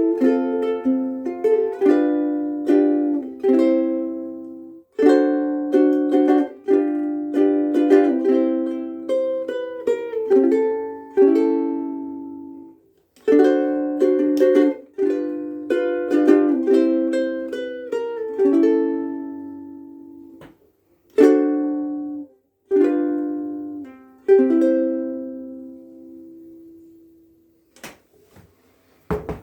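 Koaloha KSM-01 pineapple soprano ukulele with UkeSA strings, played solo: chords and picked notes in short phrases, each left to ring out and fade, with a few brief pauses.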